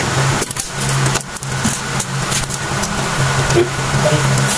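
A vehicle engine running steadily with a low hum over a constant noisy background, with a few light metallic clicks from pliers working the drum-brake shoe hardware.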